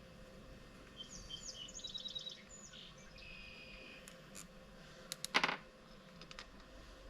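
Birds chirping and trilling for about two seconds, then a short, loud clatter of sharp clicks about five seconds in, followed by a few faint ticks.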